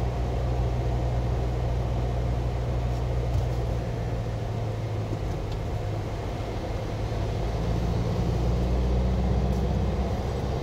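A delivery truck's engine and road noise heard from inside the cab while it drives along: a steady low drone whose note shifts about four seconds in and again later, growing a little louder near the end.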